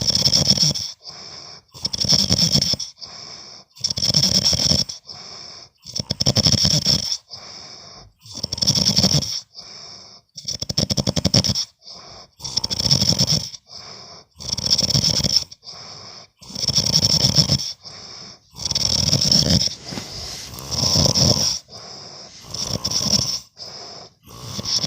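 Snoring in a steady rhythm, about one breath every two seconds: each loud, rattling snore is followed by a quieter breath.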